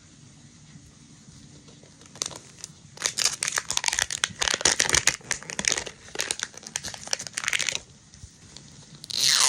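Plastic packaging of a Mini Brands toy being crinkled and torn open by hand. A dense run of crackling starts about three seconds in and stops near eight seconds, and a short, loud tear comes near the end.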